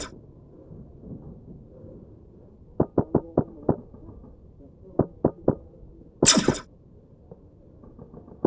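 Airsoft rifle firing in quick groups of sharp, dull shots: about five in rapid succession around three seconds in and three more about five seconds in. A short, loud burst of hiss comes just after six seconds.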